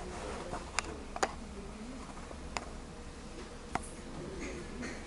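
Four sharp, isolated clicks, irregularly spaced, over a steady low hum and faint background noise.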